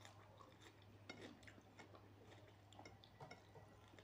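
Near silence: a few faint, scattered small clicks from eating with the hands, over a low steady hum.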